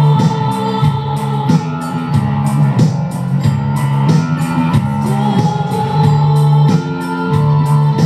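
Live band music: sustained organ-like keyboard chords over electric guitar, with a steady ticking beat.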